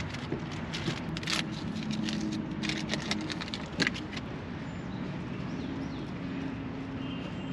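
Steady low hum of a vehicle engine running, with a few light clicks and rustles in the first few seconds.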